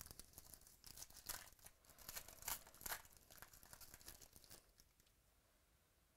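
A trading-card pack's wrapper being torn open and crinkled by hand, a run of irregular crackling for about four and a half seconds before it quiets.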